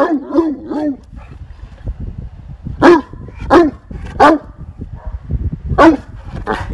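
Bernese Mountain Dog barking: a quick run of three or four barks at the start, then five more single barks spaced out over the next few seconds. The barks come from a play bow, a dog asking to play.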